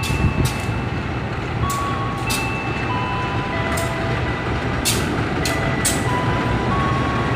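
Pair of CC206 diesel-electric locomotives rolling slowly past, with a steady low engine rumble. Thin high squeals shift in pitch, and sharp clicks come every second or so.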